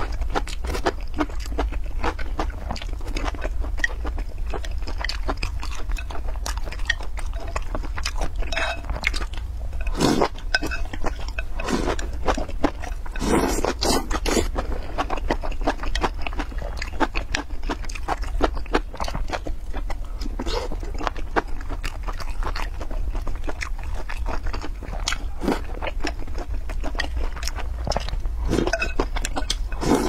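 Close-miked eating: wet chewing and mouth clicks with several louder slurps as long vegetable stems and sausage in chili oil are sucked in and chewed, over a steady low hum.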